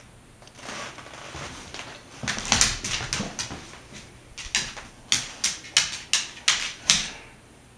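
A dog sniffing at a small metal ball, in two runs of short, quick sniffs at about three a second.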